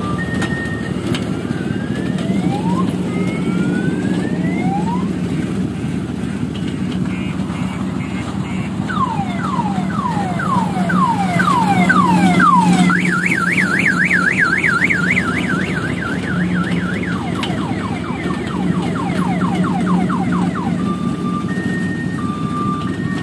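Electronic siren sound effects on a fairground kiddie car ride. A few rising whoops are followed by a run of falling sweeps, then a fast warble, then more falling sweeps, all over a steady low hum from the ride's machinery.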